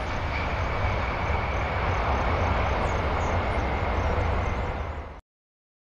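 Four-engined Boeing 747 airliner landing: steady jet-engine noise with a heavy low rumble as it touches down and rolls out along the runway. The sound cuts off suddenly about five seconds in.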